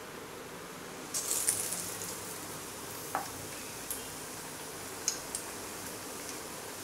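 Batter-coated bread slice deep-frying in hot oil in a kadhai. A burst of sizzling about a second in as it goes into the oil, settling into a steady sizzle with a few sharp pops and ticks.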